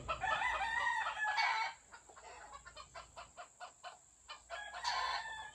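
Game roosters crowing: one crow in the first second and a half, then a quieter run of quick short ticks, and another crow starting near the end.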